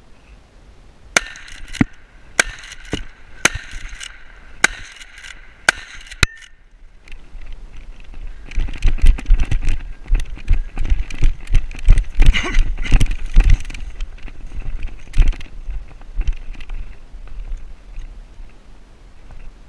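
Footfalls and brush crashing as a person pushes quickly through dense scrub, a run of irregular thumps and crackles that is loudest in the middle. Before it, for about five seconds, comes a string of sharp, ringing clicks, about two a second.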